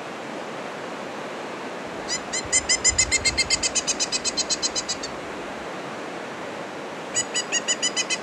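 Steady rush of white-water rapids on the West Branch of the Penobscot River. Over it a bird calls twice in loud runs of quick, evenly repeated notes, about eight a second, each run lasting two to three seconds.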